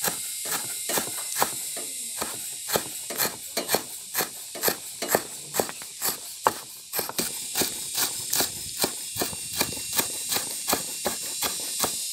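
Steel cleaver chopping green leaves on a wooden board: a steady run of sharp knocks, roughly three a second, with a steady high hiss behind them.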